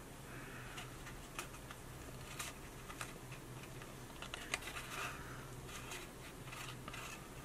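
Faint rustling and light ticking of cardstock being handled, folded and pressed as the tabs of a paper box's panels are worked into place, over a faint steady low hum.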